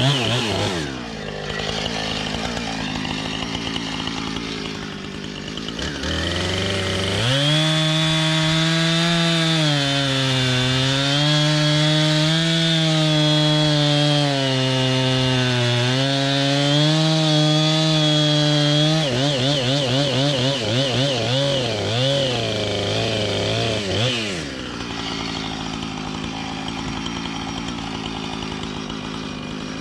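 Husqvarna 455 Rancher chainsaw bucking a birch log. It drops to idle at first. About seven seconds in it revs to full throttle and holds for about twelve seconds, its pitch dipping and recovering as the chain cuts. It is then blipped several times and settles back to idle for the last five seconds.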